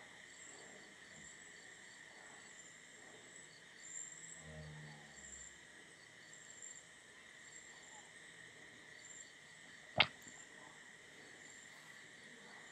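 Faint, steady, rhythmic chirping of insects, with one sharp click about ten seconds in.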